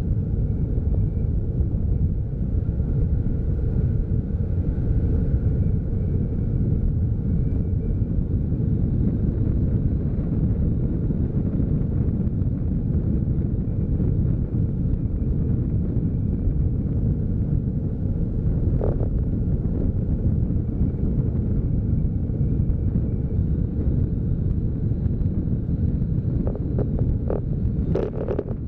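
Wind rumbling over the microphone of a camera mounted on a moving vehicle, with the vehicle's engine and road noise underneath. A few sharp clicks near the end.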